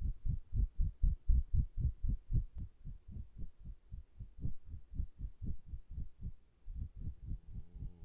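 Fast, low rhythmic thumping, about four beats a second, like a racing heartbeat. The beats are strongest in the first few seconds, soften, break off briefly about six and a half seconds in, then pick up again.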